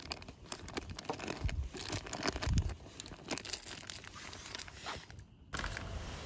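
Plastic packaging crinkling and rustling as it is handled, in quick irregular crackles with a few soft thuds. It cuts off abruptly near the end to a steady background hiss.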